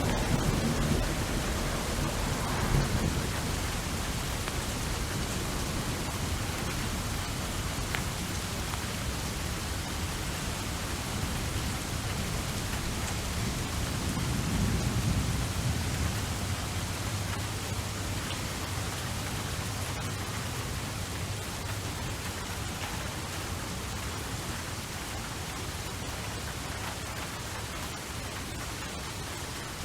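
Steady rain falling, with low rolling thunder rumbling near the start and again about halfway through.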